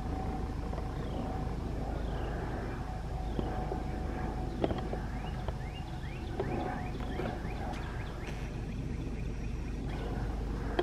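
Rail maintenance-of-way track machines running as they roll slowly along the track: a steady low engine rumble with a faint steady tone, a sharp metallic click about four and a half seconds in, and repeated short high chirps.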